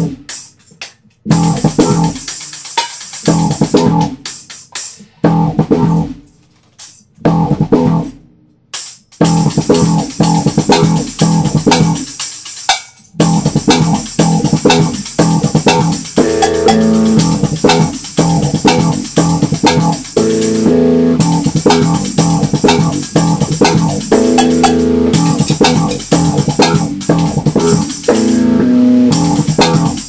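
Band music with guitar, bass guitar and drums. It plays in short stop-start phrases with brief silences between them for the first several seconds, then runs on without a break from about nine seconds in.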